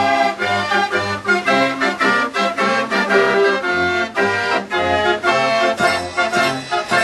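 Instrumental music with a reedy, organ-like tone, with a bass note that alternates between two pitches about twice a second under sustained melody notes.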